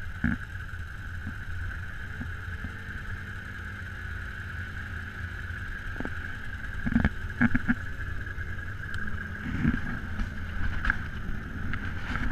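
ATV engine idling with a steady low rumble and a constant whine, with a few sharp knocks about seven seconds in.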